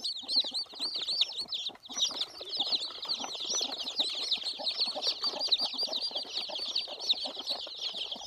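A brood of young chicks peeping without pause, many short high chirps overlapping. There is a brief lull about two seconds in, then the peeping runs denser.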